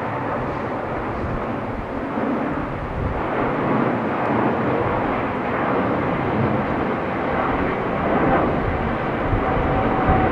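Boeing 777F freighter's twin GE90 turbofan engines at takeoff thrust as it climbs out just after liftoff: a steady jet engine noise that grows a little louder about three seconds in.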